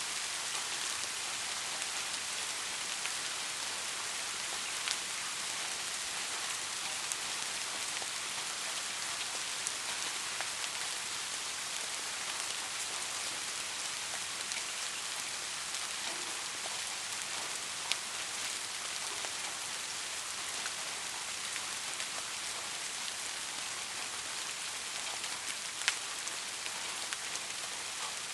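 Steady rain falling: an even hiss, with scattered sharper ticks of single drops hitting a surface, a few of them louder.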